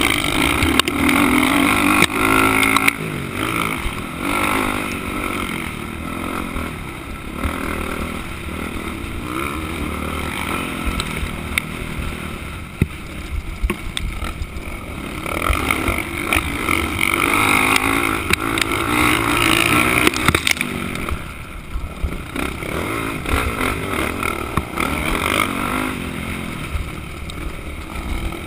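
Motocross bike engine being ridden hard, its pitch and loudness rising and falling as the rider accelerates and backs off through the turns, heard from a helmet-mounted camera with a steady rumble of wind and track noise underneath.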